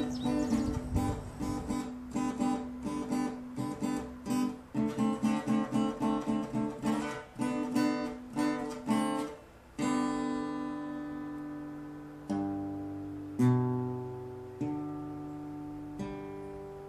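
Solo acoustic guitar playing a folk-style instrumental: quick, even plucked arpeggios for about ten seconds, then a few slow notes and chords left to ring, the last one fading away.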